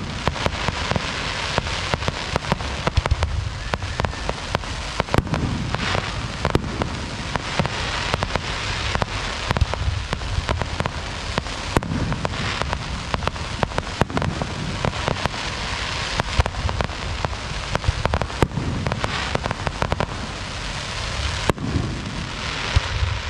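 Aerial fireworks display: shells bursting one after another, many sharp bangs close together over a continuous hiss.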